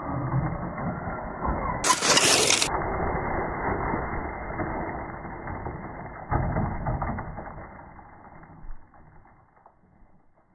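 Traxxas Sledgehammer VXL RC monster truck running, its electric motor and drivetrain driving hard, with a loud rushing burst about two seconds in and another surge a little past the middle, then fading out.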